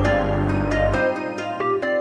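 Gentle instrumental background music: a tune of quickly struck notes over a low bass that drops out about halfway through.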